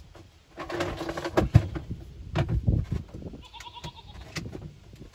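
Goats bleating twice: one call about a second in and a higher-pitched one at about three and a half seconds, with a few low thumps in between.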